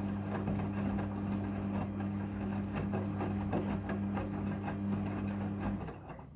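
Midea front-loading washing machine running: a steady hum with light clattering that winds down and stops near the end.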